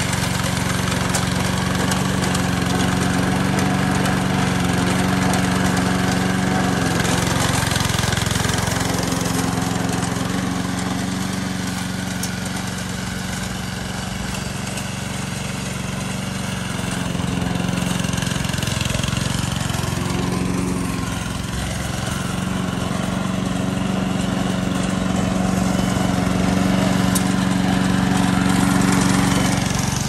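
Small gasoline engine of a remote-control tracked crawler lawn mower running steadily as the mower drives about, its level rising and falling a little.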